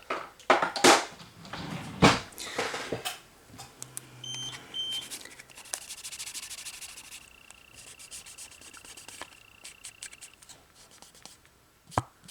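Rummaging in a drawer of supplies: rubbing and clattering strokes for the first few seconds. About four seconds in come two short electronic beeps, followed by a faint steady high whine with scattered small clicks.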